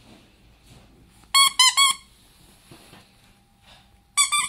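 Squeaker inside a plush tiger dog toy squeezed by hand: three quick squeaks with a wavering pitch about a second and a half in, and another run of squeaks starting near the end.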